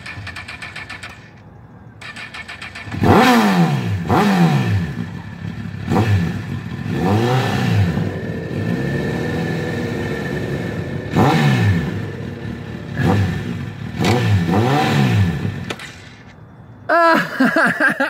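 Honda CBR 1000cc sportbike's inline-four engine running at a standstill and revved in repeated short blips, the pitch rising and falling back each time, with a steadier idle between them.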